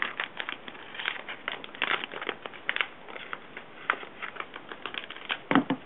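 Cardboard and plastic cable packaging being pulled and torn open by hand: a run of irregular crinkling and scratchy rustles, louder near the end.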